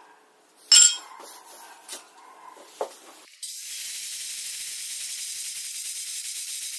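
A steel plate clanks down on a metal workbench, with a few more knocks as it is handled. About three and a half seconds in, an angle grinder starts cutting the sheet steel with a steady high-pitched noise.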